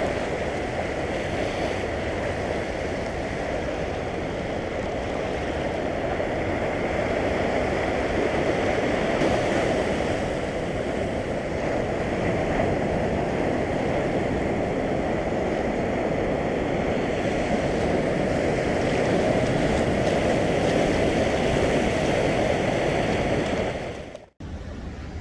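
Sea surf washing over shoreline rocks: a steady rushing wash that swells and eases slowly. It cuts off suddenly near the end.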